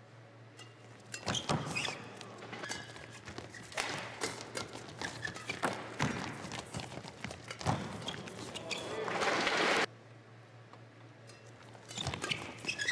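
Badminton rally in a doubles match: a rapid run of sharp racket strikes on the shuttlecock and players' footwork on the court. Crowd noise then swells near the end of the rally and cuts off suddenly, and after a short lull the next rally's strikes begin.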